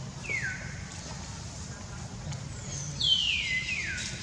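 Baby macaque giving high, falling squeals: one short call about a third of a second in, then two more in quick succession near the end.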